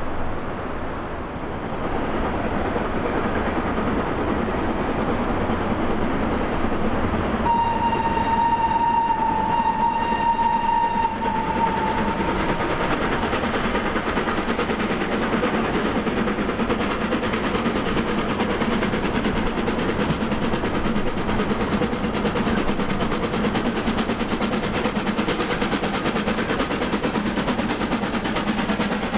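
Gr 625 steam locomotive working its train, a steady rush of noise throughout, with one steam-whistle blast of about four seconds about seven and a half seconds in: a single steady note that sags slightly as it ends.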